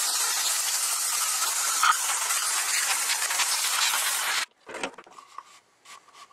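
Compressed air hissing from an air-hose blow gun as it blows out an oil filter housing cap, a loud steady hiss that cuts off sharply about four and a half seconds in. Faint rubbing and light clicks follow.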